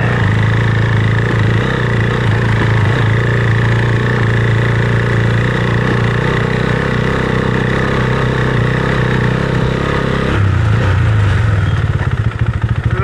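Husqvarna Svartpilen 401's single-cylinder engine running steadily under way, its note dropping suddenly about ten seconds in as the throttle is eased, then pulsing unevenly at low revs near the end.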